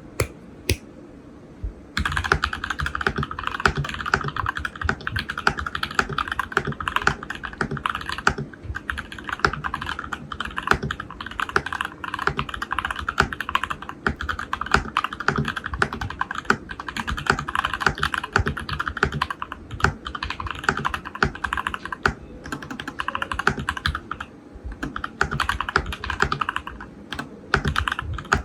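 Fast continuous typing on a Varmilo Miya68-D mechanical keyboard with stock, unlubed Matcha Ice linear switches on a steel plate and XMI keycaps. A couple of single clicks come first, and steady typing starts about two seconds in, with a few short pauses.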